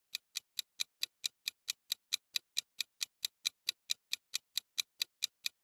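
Steady clock-like ticking, about four to five sharp ticks a second: a countdown-timer sound effect running while the viewer guesses.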